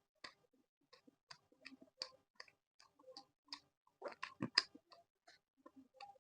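Close-miked chewing of laddu peethi with chutney: irregular wet mouth clicks and smacks, with a louder cluster of chews about four seconds in.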